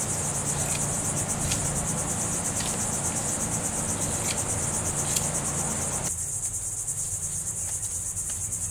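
Insects trilling steadily in the background, a high, fast-pulsing chorus. In the first six seconds there are several faint snips of scissors cutting through fiberglass cloth.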